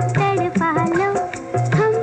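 Background music in an Indian film-song style: a wavering melodic line over a tabla-like drum pattern.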